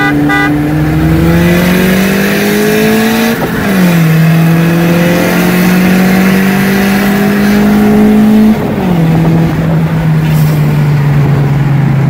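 Car engine heard from inside the cabin under hard acceleration: its pitch climbs, drops sharply at an upshift about three seconds in, climbs again and drops at a second upshift near nine seconds, then holds steady in the higher gear. A short car horn toot sounds right at the start.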